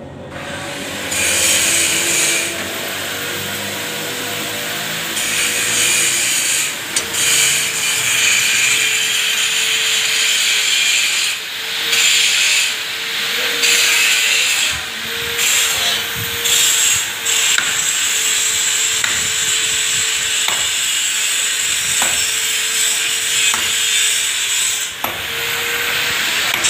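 A power tool running, its loud hiss dropping out briefly several times over a steady whine.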